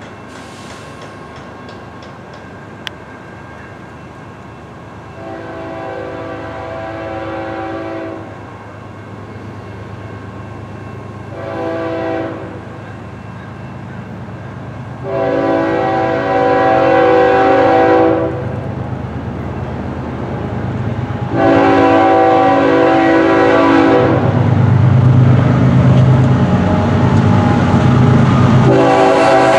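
BNSF diesel locomotive's air horn sounding a chord of several tones in five blasts: long, short, long, long, and another long near the end. A low engine rumble grows louder as the train approaches and is strongest between the last two blasts.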